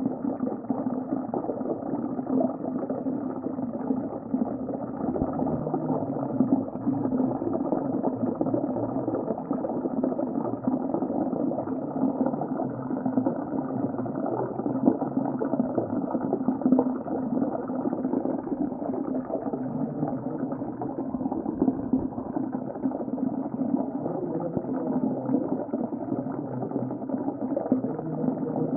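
Underwater sea ambience: a steady, muffled wash of bubbling, rushing water with a fine crackle running through it.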